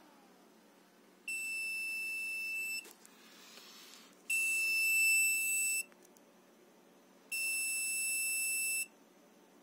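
Electronic load tester's buzzer giving three long, steady, high-pitched beeps, about 1.5 s each and evenly spaced. This is the end-of-test alarm as the 18650 cell under a 25 A load reaches the 3.0 V cut-off voltage.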